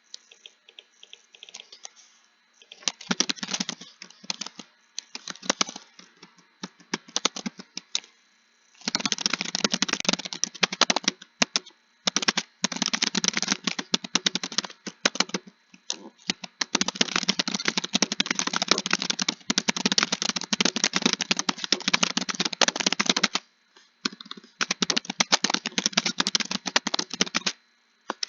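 Computer keyboard typing in fast, continuous runs of keystrokes lasting several seconds each, broken by brief pauses. The typing is sparse and faint for the first few seconds.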